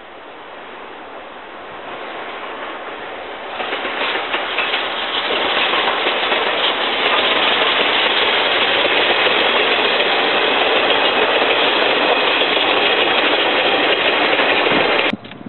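Double-headed steam train passing, led by C11 325 and C12 66 tank locomotives hauling passenger coaches. It grows louder from about four seconds in into a steady, loud rush of exhaust and wheels on the rails, and cuts off suddenly near the end.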